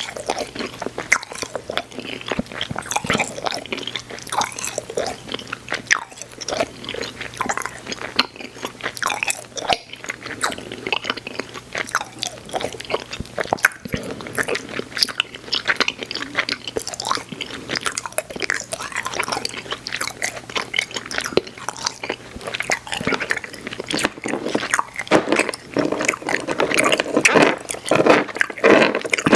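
Close-miked chewing of Airheads Xtremes sour chewy candy: a steady stream of sticky, wet mouth clicks and smacks, getting louder in the last few seconds.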